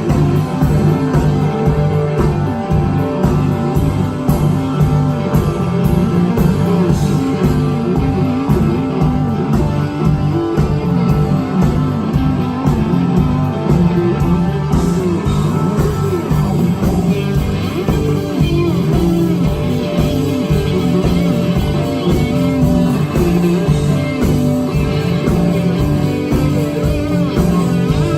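Live blues-rock band playing an instrumental passage: electric guitar lines over bass and a steady, driving drum beat.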